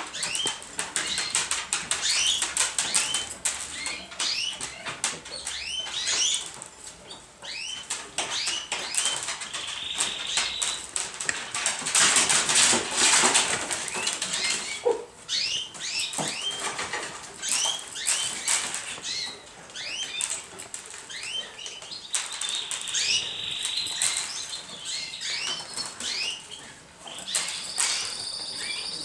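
Domestic pigeons in a loft flapping their wings, with many short, high, rising squeaks throughout and a louder flurry of wingbeats about halfway through.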